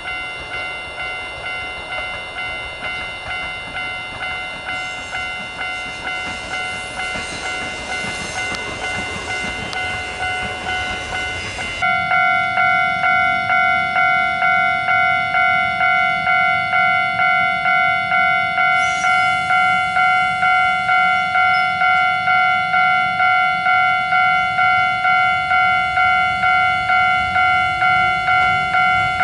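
Japanese railway level-crossing warning bell ringing evenly at about two strokes a second. It is fainter at first, then much louder and nearer from about twelve seconds in.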